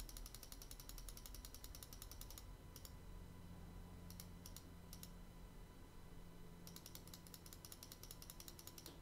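Faint, rapid clicking of a computer mouse and keyboard in use. There is a quick run of even clicks at the start, a few scattered clicks in the middle and another quick run near the end, over a low steady hum.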